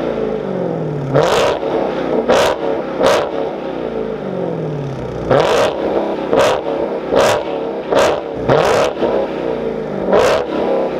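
Supercharged 6.2-litre HEMI V8 of a Dodge Challenger Hellcat revved in place through a Corsa aftermarket exhaust: about nine quick throttle blips, each rising sharply and then falling back toward idle, with a raspy tone. The revs top out around 4,000 rpm, the limit the engine holds to when the car is standing still.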